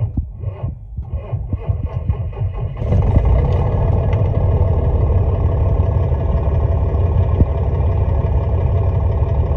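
Heavy truck engine cranking over for about three seconds with an uneven pulsing, then catching and running steadily: a hard start, typical of weak batteries.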